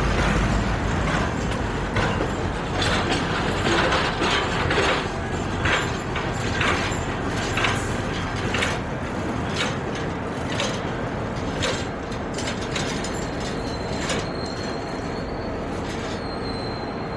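Freight train wheels clicking and clanking over rail joints as a Soo Line diesel locomotive slowly pulls a heavy-duty flatcar away, the train noise gradually fading. The deep engine rumble drops away about a second in, and a faint high wheel squeal comes in near the end.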